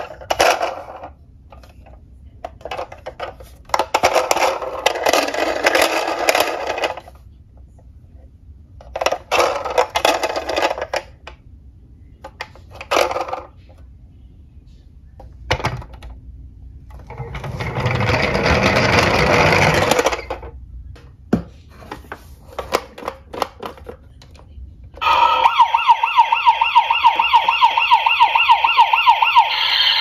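Battery-powered toy police truck's electronic siren switched on about 25 s in, sounding a fast warble. Before it come short bursts of plastic handling clatter, and midway a toy police car's plastic wheels roll down a slope for about three seconds.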